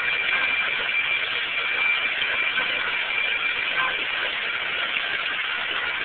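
Forklift running steadily as it spins in tight circles: an even rushing noise with a steady high whine on top.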